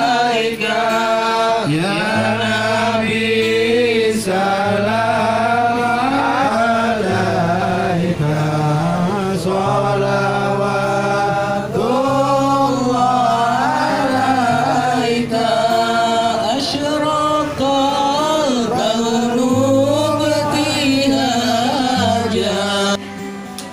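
Group of men chanting Islamic devotional verses together in a sung melody, over a low held note that shifts pitch every second or two.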